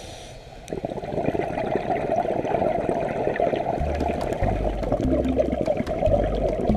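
Underwater bubbling and gurgling, typical of a scuba diver's exhaled regulator bubbles, with a dense crackle throughout.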